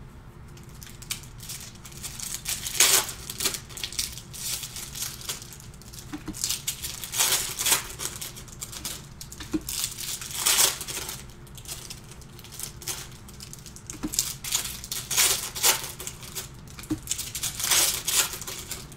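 Plastic trading-card pack wrappers being crinkled and torn open by hand, with cards being handled, in irregular bursts every second or two.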